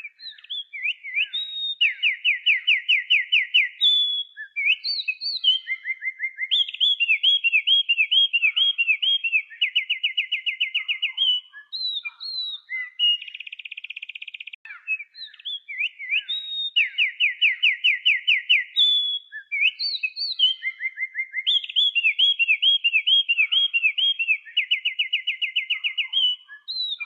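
A songbird singing a loud, varied song of clear whistles, fast runs of repeated notes and a buzzy trill. The same sequence of phrases comes round again about halfway through.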